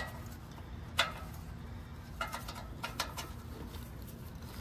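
A handful of short, sharp metallic clicks and taps with a brief ring: one about a second in, then two close pairs, from parts and tools being handled at the exhaust manifold.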